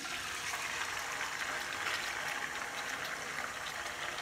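Boiled mutton and its cooking juices sizzling and bubbling in a hot kadhai, a steady hiss with scattered small pops, just after being tipped into the pan.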